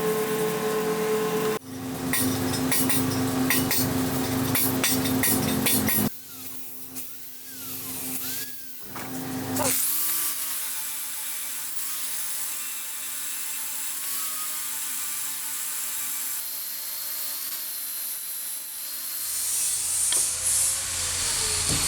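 Workshop power tools heard in a series of short cuts: first a steady motor tone, then a tool working with a steady hum and rapid scraping ticks, then a long steady hiss.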